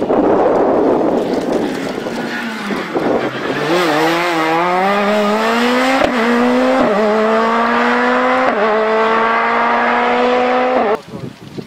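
Škoda Fabia S2000 rally car's 2.0-litre four-cylinder engine under full acceleration. A loud rush of tyre and road noise comes as it passes, then the engine note climbs through the gears, dipping at each upshift. It cuts off abruptly near the end.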